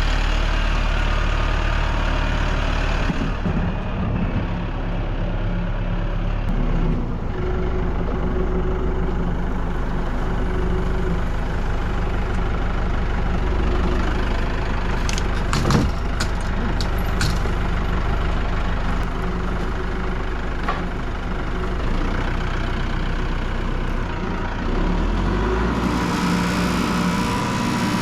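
A vehicle engine running steadily, its pitch shifting a few times as the load or throttle changes, with a sharp metallic knock about halfway through.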